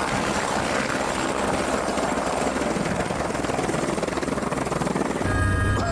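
Helicopter flying, its rotor chop and turbine a steady dense noise. About five seconds in it gives way abruptly to a steady low hum with thin steady tones.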